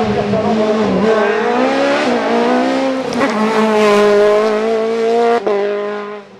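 Norma M20 F sports-prototype race car engine at high revs as it climbs through hairpins, its pitch falling and climbing again several times with sudden breaks. The sound fades away near the end.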